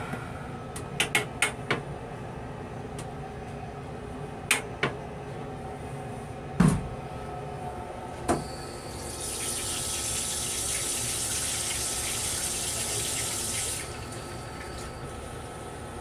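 Stainless-steel toilet in a Metro-North M3 railcar restroom being flushed: a few clicks and knocks, a sharp click as the wall flush button is pressed about eight seconds in, then the flush hissing for about five seconds before cutting off. The steady running noise of the moving train lies underneath.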